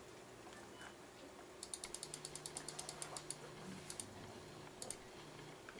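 Quiet, quick light clicks, about ten a second for nearly two seconds, then a few scattered clicks, from a tiny GA12-N20 metal-geared motor being picked up and handled in the fingers.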